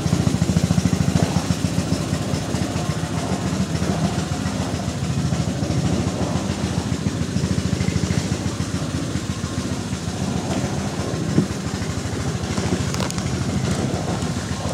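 Small outboard motor of a canoe running steadily, with one short knock about three-quarters of the way through.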